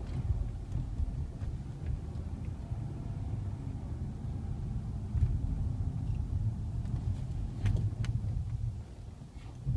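Low groaning rumble from a 2010 Ford Fusion's brakes as they are released, a noise the owner takes to be abnormal. A couple of sharp clicks come late on, then the groan dies away, with a thump at the very end.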